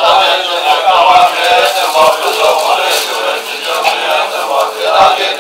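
A group of Tibetan Buddhist monks chanting prayers in unison, a continuous recitation of many male voices.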